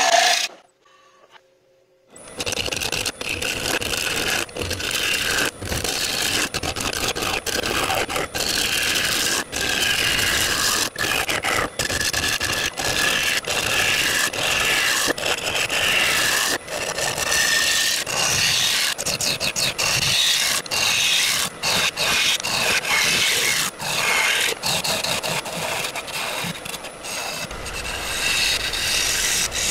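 Bowl gouge cutting a spinning rowan bowl blank on a wood lathe: a steady scraping hiss of the tool peeling shavings off the wood. It starts about two seconds in, after a moment of near silence, and is chopped by many brief gaps.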